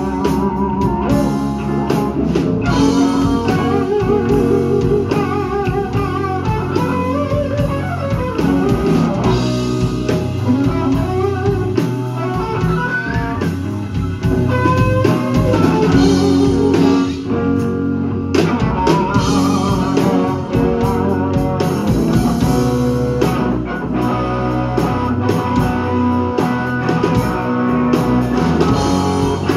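Live blues band: electric guitar playing a lead solo with wavering, bent notes over bass guitar and drums in a slow blues.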